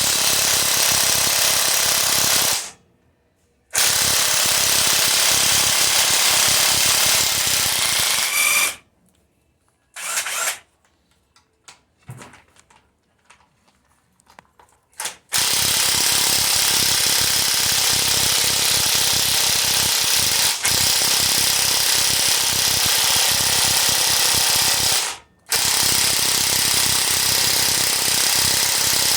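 A power impact wrench hammers on the engine's 15 mm cylinder head bolts in long bursts of several seconds, with short pauses between. The bolts are not breaking loose, so a breaker bar is needed.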